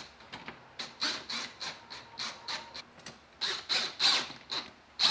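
Cordless drill-driver run in short trigger pulses, about three a second, driving in the bolts that hold the cooling fan assembly onto the radiator; each pulse is a brief high-pitched whirr.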